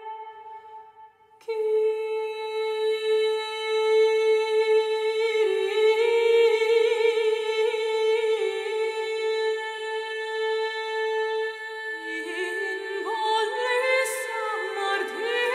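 A female vocal ensemble singing Byzantine chant: a steady held drone note (the ison) under a slow, ornamented melody line. The singing dies away briefly and comes back in sharply about a second and a half in. Near the end the voices move to lower notes.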